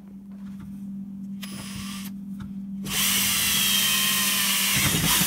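Electric drill running, then from about three seconds in boring a hole through the wall of a 2-inch PVC pipe, much louder as the bit cuts.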